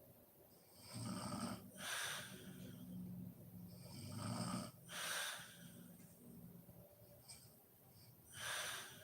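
A woman snoring in her sleep: two low snores about three seconds apart, each followed by a breathy rush of air, and another loud breath near the end.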